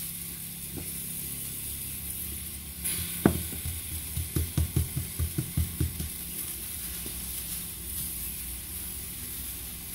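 A nopal paddle sizzles steadily as it roasts in a pan. Over it, hands pat and press a ball of masa flat on a plastic sheet on a stone counter, a quick run of about ten soft pats starting about three seconds in.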